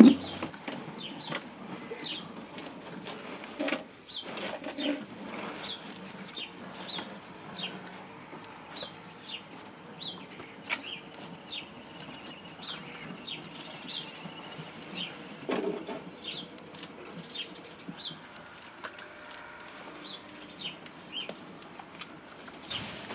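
Flat-coated retriever puppies playing in and around a nylon play tunnel on patio tiles: fabric rustling, scrabbling and clicking of small paws, with a few louder bumps. Short high chirps of small birds come about once a second throughout.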